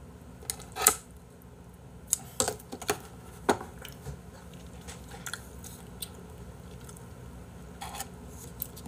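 Kitchen scissors snipping raw beef, followed by a scatter of sharp clicks and taps from chopsticks and dishware as the meat is picked up and eaten.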